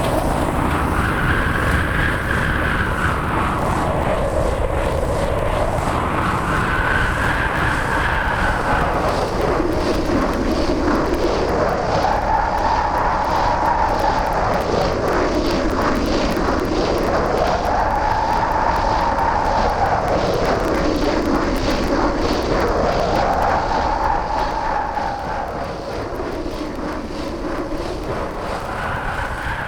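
Harsh electronic noise: a loud, dense roar with a pitched tone sweeping slowly up and down about every five seconds, dropping slightly in level near the end.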